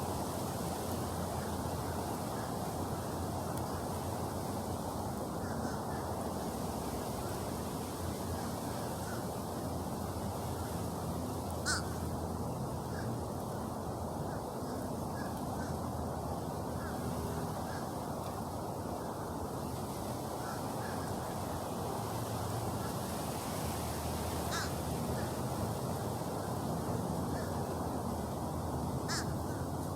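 Steady low hum of a honeybee swarm, with three short sharp calls, likely crows cawing, at about 12 s, 25 s and 29 s.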